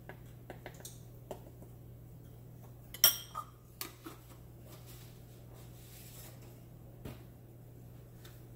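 A metal spoon clinking against a glass bowl and a plastic seasoning jar as the jar is put away, a few scattered sharp clicks with the loudest about three seconds in, over a steady low hum.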